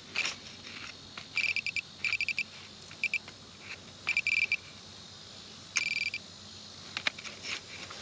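Handheld metal-detecting pinpointer beeping in short bursts of rapid high chirps as it is pushed through a pile of dug soil, signalling a small iron square nail in the loose dirt. A few faint clicks near the end.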